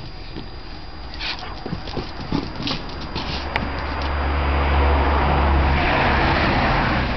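German Shepherd growling steadily for about three seconds with a ball held in its mouth, after a few light taps and clicks.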